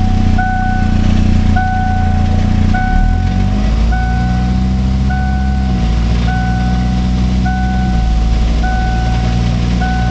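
Ford Mustang SVO's turbocharged 2.3-litre four-cylinder running in gear on jack stands with the driveline spinning; the revs rise about three seconds in and drop back later. A two-tone warning chime beeps steadily, a little more than once a second.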